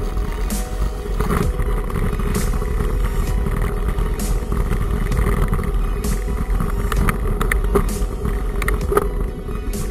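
Onboard sound of a mountain bike being ridden over a bridge and a rough dirt track: a steady rumble of wind on the camera microphone, with irregular knocks and rattles as the bike jolts over bumps.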